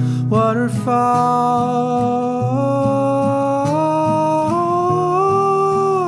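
Indie band music: one long held note, most likely sung, that steps up in pitch a few times, over acoustic guitar and low chords.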